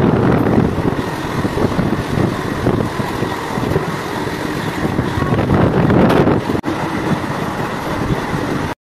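Moving train heard from its window: a steady rumble of the train running along the track, mixed with the rush of air. It drops out for an instant about two-thirds through and stops abruptly just before the end.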